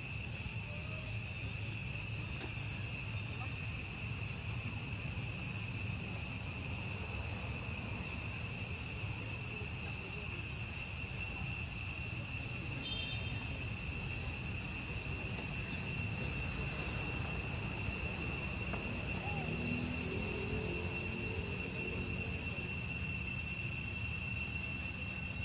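Forest insect chorus: a continuous high-pitched buzzing drone held at two steady pitches, over a low steady rumble.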